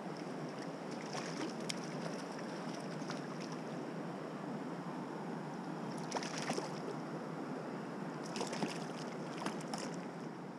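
Steady rush of stream water, with a hooked trout splashing at the surface as it is handled by hand in the water. The splashes come in short clusters about a second in, around six seconds in, and again from about eight to ten seconds.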